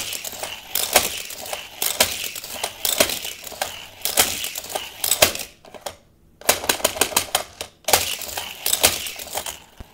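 Die-cast Hot Wheels car running laps on plastic track, clicking and rattling over the track joints in passes that come and go, with short breaks between them.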